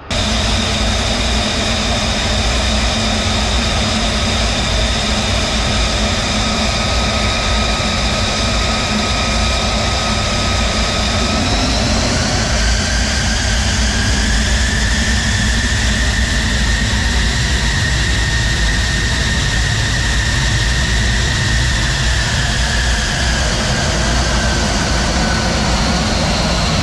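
F-35 Lightning II's F135 turbofan engine running at low power as the jet taxis: a steady high whine over a low rumble. The whine rises in pitch about twelve seconds in and eases back down near the end.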